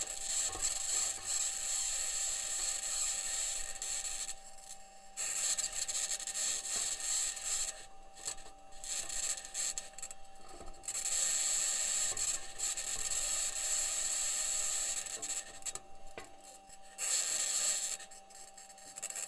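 Perseverance Mars rover driving, picked up by its entry, descent and landing microphone: the wheels and suspension grinding over the Martian surface. A high-pitched scratching noise comes and goes in stretches of a few seconds, over a steady tone. NASA engineers say the scratching may be electromagnetic interference from one of the rover's electronics boxes, or the mobility system rubbing against the surface.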